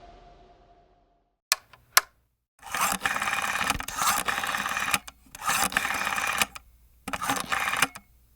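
Editing sound effects: a ringing tail fades out in the first second, two sharp clicks follow, then three bursts of rapid, noisy ticking clatter, each one to two seconds long, with short gaps between them.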